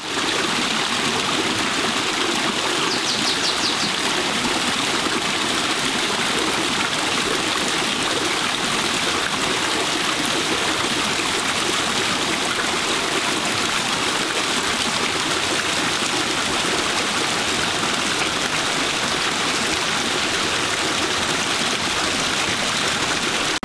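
Shallow rocky stream running steadily, water splashing and rippling over stones.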